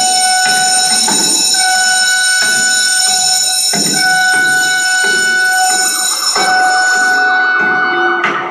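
A loud, steady electronic tone, like an alarm or buzzer, held unchanged, then fading out about seven seconds in.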